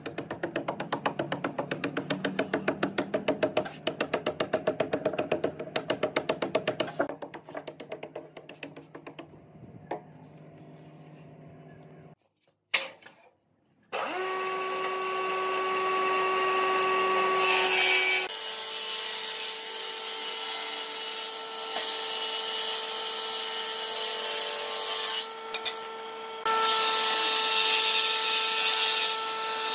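Background music with a quick percussive beat fades out, and after a short silence a combination woodworking machine starts and runs steadily with a humming tone. Its pitch steps up once and it briefly drops away twice near the end.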